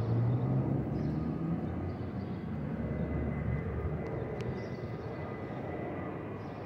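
Twin-engine jet airliner passing overhead: a steady low engine rumble with a faint high whine, loudest near the start and easing slowly.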